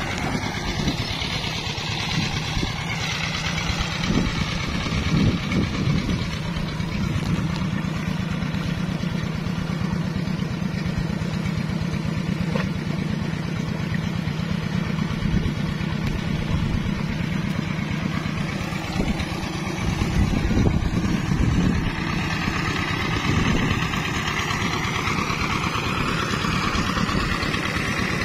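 Single-cylinder diesel engine of a công nông two-wheel-tractor farm truck running steadily at idle.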